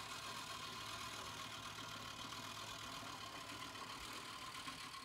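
Walk-behind gasoline lawn mower engine running at a faint, steady pitch as the mower is pushed across grass.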